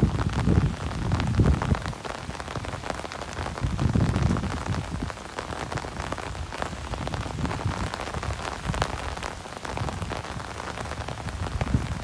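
Steady rain pattering on an umbrella overhead: a dense hiss made of many separate drop taps. A low rumble swells briefly at the start and again about four seconds in.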